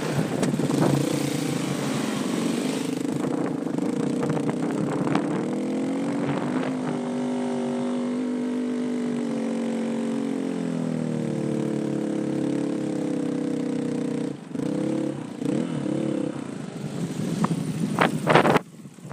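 Off-road dirt bike engines running, their pitch rising and falling with the throttle and settling lower about ten seconds in. A few sharp knocks near the end.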